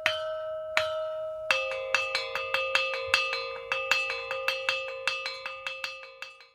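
A metal bell struck repeatedly: two single rings, then from about a second and a half in a rapid run of strikes at a slightly lower pitch, each ringing on into the next, cut off suddenly at the end.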